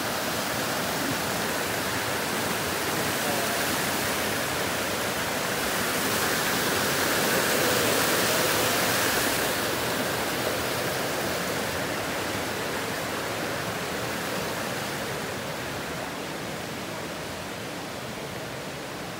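Mountain creek rushing over rocks, a steady wash that swells to its loudest about halfway through and fades toward the end.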